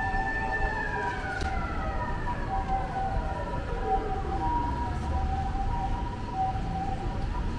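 Emergency vehicle sirens in a city street: a two-tone siren alternating steadily between a high and a low note, while a second siren's tone falls slowly in pitch over about four seconds. Low street rumble runs underneath.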